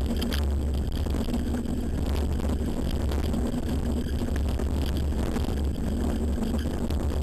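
A Rocky Mountain Flatline downhill mountain bike rolling fast down a dirt forest trail, heard from a camera mounted on it: a steady low rumble of tyres on dirt and wind on the microphone, with quick clicks and rattles as it runs over the bumps.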